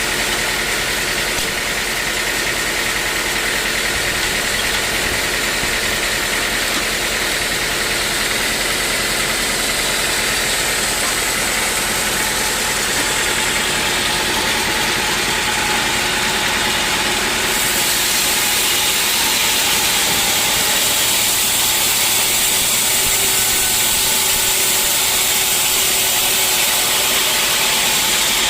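Sawmill saw and machinery running steadily with a loud, even mechanical noise; a harsher high hiss comes in about two-thirds of the way through.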